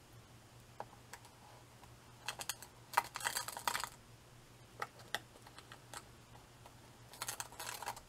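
Small plastic spoon scraping and scooping fine sand in a metal can and sprinkling it onto model railroad track. Two spells of quick, rattling clicks, about two to four seconds in and again near the end, with a few single ticks between.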